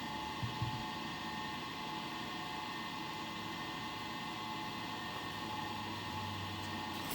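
Steady background hum and hiss with a constant tone, with a couple of faint low knocks about half a second in.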